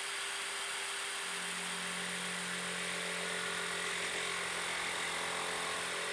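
Milwaukee M18 cordless jigsaw running steadily with a constant hum while its blade is lowered slowly through thin sheet material in a plunge cut, the saw tipped on the nose of its shoe. A lower hum joins about a second in.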